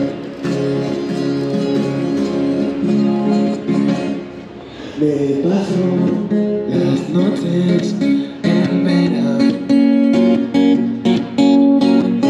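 A street busker's acoustic guitar, amplified, strummed in steady chords, with a man's voice singing at times. The playing dips briefly about four seconds in, then picks up again.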